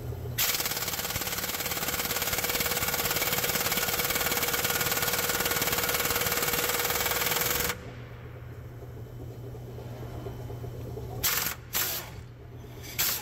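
Air impact wrench hammering steadily for about seven seconds to break loose a main bearing cap bolt on a Cat C15 diesel, then cutting off abruptly; three short bursts of the wrench follow near the end.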